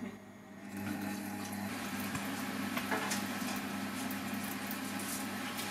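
Silvercrest Monsieur Cuisine Plus food processor starting about a second in and running steadily at its lowest speed: a motor hum while the blade stirs milk and melting butter in the steel bowl.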